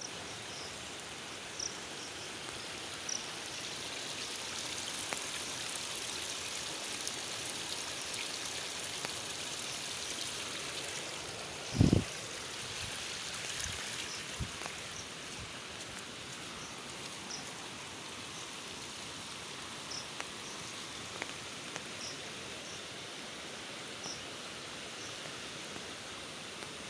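Muddy floodwater rushing in a swollen river: a steady rushing hiss, with one dull thump about halfway through.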